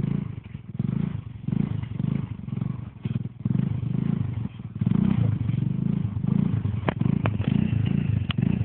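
Linhai ATV engine running, its sound rising and falling in quick pulses, louder from about five seconds in, with a few sharp clicks near the end.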